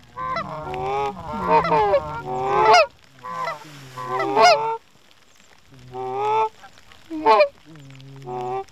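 Canada goose honks and clucks in quick runs, the notes breaking sharply upward in pitch, with a short pause about five seconds in.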